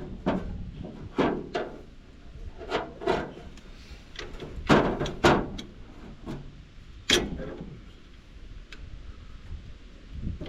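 Hand tools and metal parts knocking and clanking irregularly, about a dozen sharp knocks, loudest a little under halfway through and again about two-thirds in.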